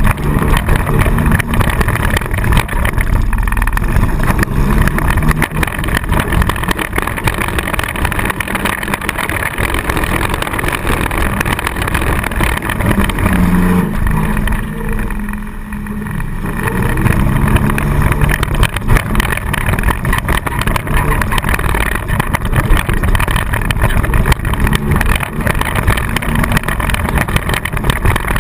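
Four-cylinder demolition derby car engine running hard and revving up and down, heard loud from inside the car, easing off briefly about halfway through before picking back up.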